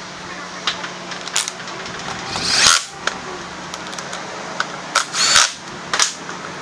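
Workshop power tool running in two short bursts, about two and a half and five seconds in, with light clicks of tools and parts between them.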